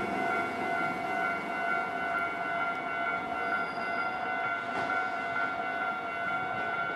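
Japanese level-crossing warning bell on a Nankai Electric Railway crossing, ringing steadily, over a steady rushing noise.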